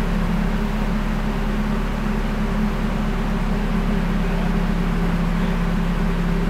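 Turbocharged Honda Civic VTi engine idling steadily.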